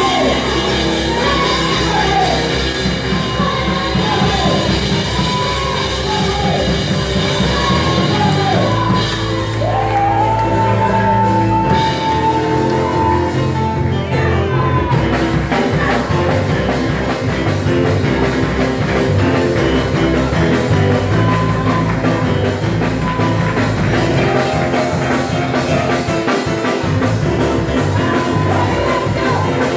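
Loud live praise music with a steady band beat, and voices singing and shouting over it in the first half.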